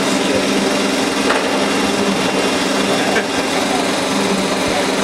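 CNC polygon turning machine running a cutting pass: the belt-driven spindle and rotating two-insert cutter disc machining four flats on a 45 steel bar, with a steady, even hum.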